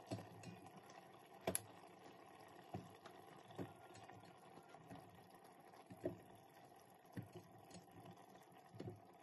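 Peeled potatoes being set down one at a time on a wire trivet rack in a stainless steel pot: faint soft thuds and taps, about eight in all, with one sharper metallic click about one and a half seconds in.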